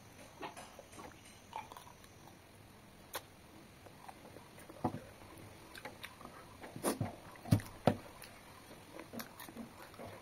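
A person eating rice and mutton gravy by hand from a banana leaf: scattered wet mouth smacks and chewing clicks, with two louder low thumps about three-quarters of the way through as the fingers press onto the leaf to gather the meat.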